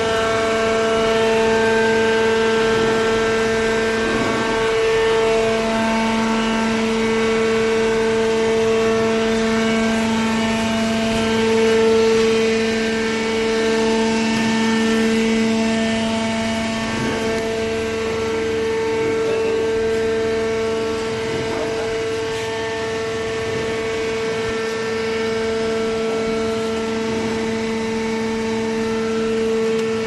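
Hydraulic baler's power unit, an electric motor driving the hydraulic pump, running with a loud, steady hum made of several held tones.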